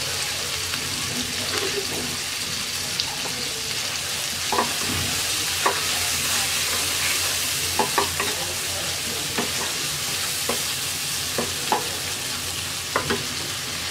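Prawns frying in oil and spice masala in a non-stick wok, a steady sizzle, while a wooden spatula stirs them, its scrapes and knocks against the pan coming as short clicks about once a second.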